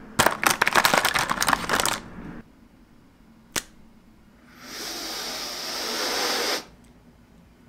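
A rapid clatter of clicks for about two seconds, then a single sharp click as a felt-tip marker's cap comes off, then one long sniff through the nose at the marker tip lasting about two seconds.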